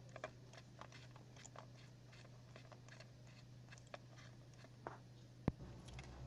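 Faint, scattered clicks and taps of hand tools being used to take out a spark plug, over a low steady hum. One sharper click comes about five and a half seconds in.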